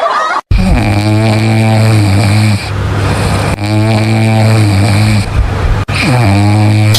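A man snoring loudly: three long snores with a low, steady pitch, each sliding up briefly at its start.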